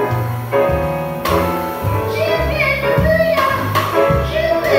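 Live jazz combo: a woman sings held, wavering notes into a microphone over grand piano, walking upright bass and a drum kit, the voice coming to the fore about two seconds in.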